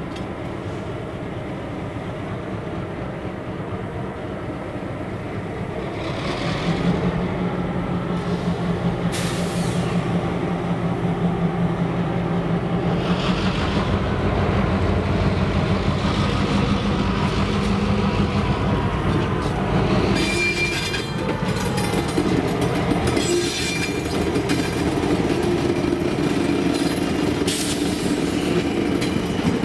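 Diesel locomotive engines running, growing louder with a strong steady drone about six seconds in as they load up to pull. Later the locomotives roll slowly past with wheel and rail noise and a little thin flange squeal.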